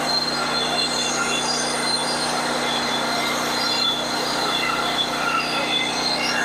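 Portable band sawmill running, its engine under load as the blade saws lengthwise through a log. A steady drone with high whining tones over it.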